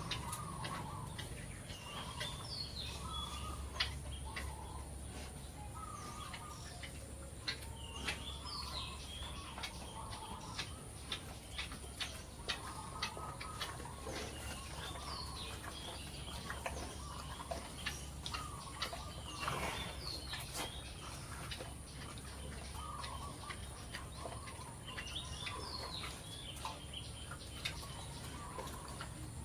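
Birds calling: short chirpy calls recur every couple of seconds over a steady low hum, with many sharp clicks scattered throughout.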